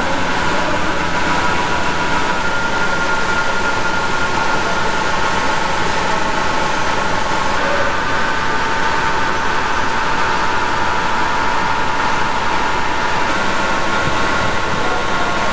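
Roll and stabilizer grinding machine running: a steady mechanical whir from its motors, with several steady high tones over an even noise.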